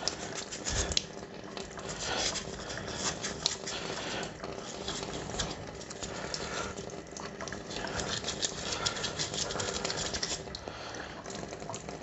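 Tap water running and splashing into a stainless steel sink as a motorcycle rear brake caliper is turned and washed under it by hand, with many small clicks and knocks of the caliper against hands and sink.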